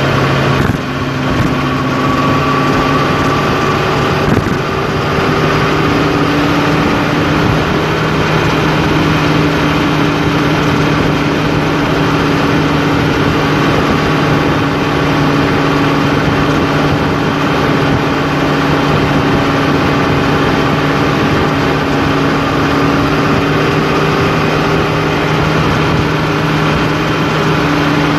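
Engine drone and road noise inside the cab of a vehicle cruising on a highway. The engine's pitch steps up once, about five seconds in.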